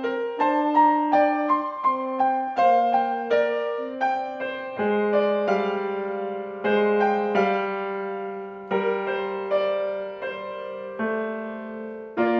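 Piano playing a slow, gentle piece. It opens with evenly spaced single notes, about two a second, then from about five seconds in moves to longer held chords over a low bass note.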